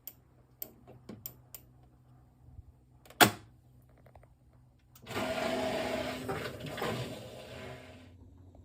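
Washing machine and laundry-room handling sounds: a few light clicks, one sharp click about three seconds in, then a hiss lasting about three seconds.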